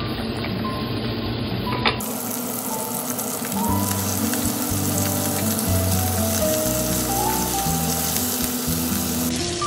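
Chicken thighs sizzling steadily as they sear in hot oil in a heavy pot, skin side first and then turned once golden. Background music with a slow, simple melody plays over the sizzle.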